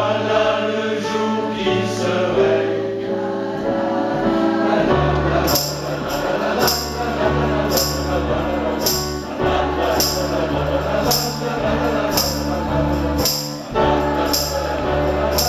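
Mixed choir singing in French to electric keyboard accompaniment. About five seconds in, a bass line and a steady, high, jingling beat of about two strokes a second join the singing.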